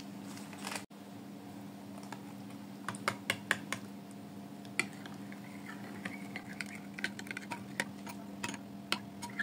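Metal spoon stirring a yeast, powdered-milk and warm-water mixture in a glass bowl, clicking against the glass in irregular light taps that start about three seconds in.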